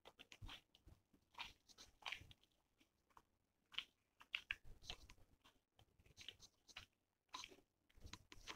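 Close-miked chewing and mouth sounds of a person eating rice and chicken curry by hand: quiet, irregular clusters of short wet clicks and crunches with brief pauses between.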